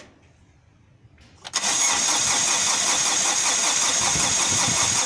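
MG6's 15E4E engine turned over by its starter motor, cranking steadily from about a second and a half in without catching. This is the car's crank-no-start fault, which the title traces to no power at the ignition coils.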